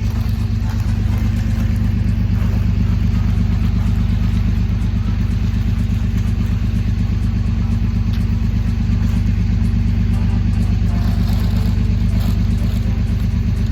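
A vehicle engine running steadily, with a constant low drone.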